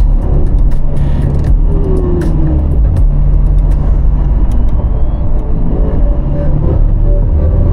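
Toyota Fortuner's 2.8-litre turbo-diesel engine running under way with a steady low drone.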